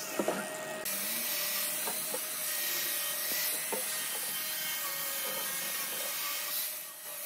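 Electric angle grinder fitted with a sanding disc running and sanding wood: a steady motor whine under the rasp of the disc, easing off near the end.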